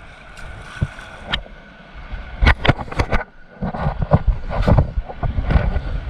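A river raft running a rapid: rushing white water, then from about two seconds in a run of sharp, irregular splashes crashing over the boat, with low buffeting on the microphone.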